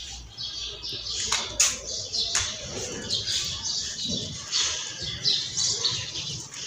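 Small birds chirping, many short high chirps at an irregular pace, with a few sharp clicks in the first couple of seconds.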